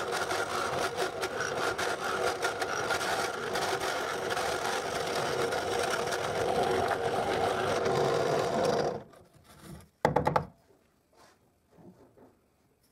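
Drill press running with a wood bit cutting into oak to clean out a mortise; a steady motor hum with the bit chattering in the wood. It stops about nine seconds in, and a single knock follows a second later.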